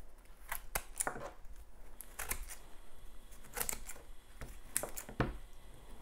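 Red-handled hand pruners snipping through a tough ashwagandha root ball, a series of sharp clicks at irregular intervals as the blades close on the hard roots.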